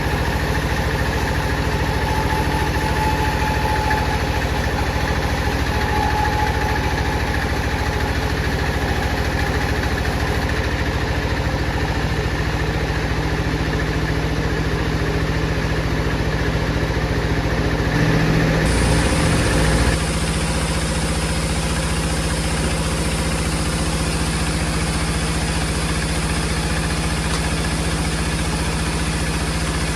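Saw machine running steadily with a low, even hum. About 18 seconds in it grows louder for about two seconds, then settles back with a slightly changed tone.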